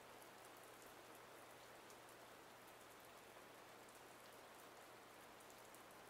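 Near silence: a faint, steady hiss of room tone with a low hum.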